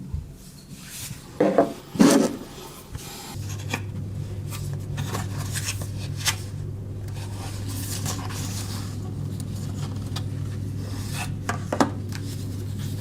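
Objects being handled on a desk: a couple of knocks and some rubbing and clicking, then a steady low hum sets in about three seconds in and keeps going.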